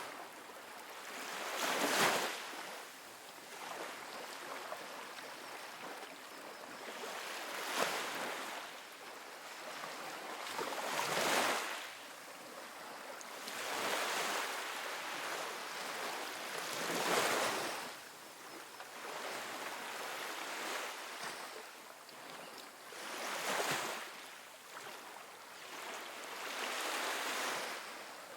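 Small ocean waves breaking and washing up on a sandy beach, a rushing surge every few seconds that swells and fades between breaks.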